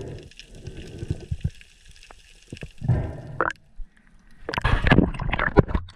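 Water gurgling and sloshing around an underwater action camera in irregular bursts. The loudest splashing comes near the end, as the camera breaks the surface.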